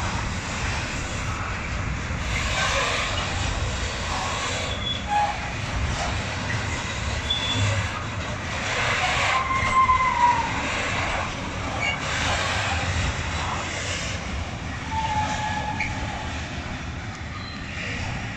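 Container freight train wagons rolling past on the track, a steady rumble of wheels on rail with several short, high wheel squeals.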